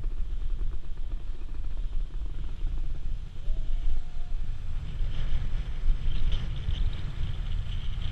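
Wind buffeting the moving camera's microphone as a low, uneven rumble. About five seconds in, a scraping hiss of snowboard edges carving across snow joins it.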